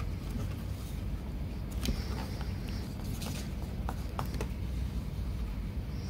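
Small sharp clicks and taps of laptop parts being handled and fitted, likely the hard disk caddy going into the laptop, over a steady low hum. The clicks are bunched about two seconds in and again between three and four and a half seconds in.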